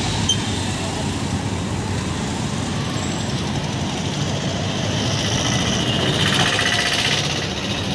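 A large vehicle's engine running steadily amid street traffic noise, with a higher hiss swelling briefly about six seconds in.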